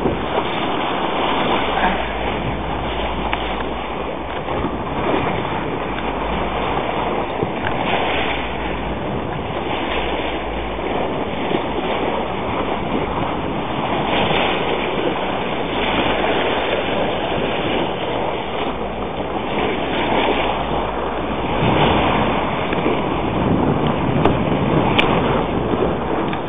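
Wind buffeting the microphone over sea water washing around a boat: a steady rushing noise with a low rumble that comes and goes.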